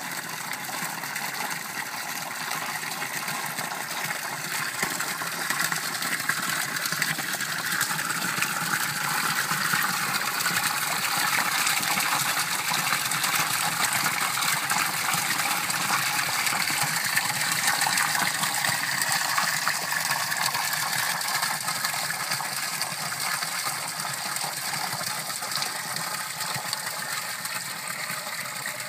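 Rock spring water splashing steadily as it pours in a stream into a stone basin, growing louder toward the middle and easing off again near the end.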